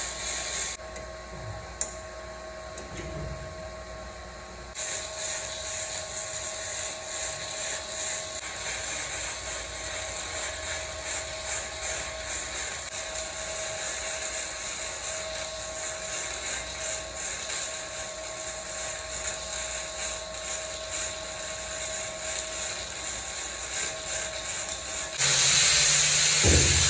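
Electric arc welding on steel: a steady crackling, sizzling arc laying down weld beads, with a quieter pause early on. About 25 seconds in, a louder power tool starts up.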